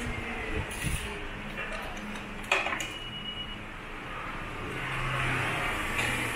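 Claw machine and arcade din, with a sharp click about two and a half seconds in followed by a short high beep, and a low hum swelling near the end.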